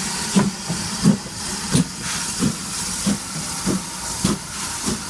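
Steam locomotive exhausting in slow, even chuffs, about one and a half a second, over a steady hiss of steam.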